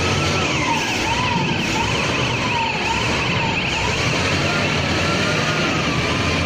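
Electronic siren sound: a slow wailing tone and a faster warbling tone together, over a steady rumbling, motor-like noise.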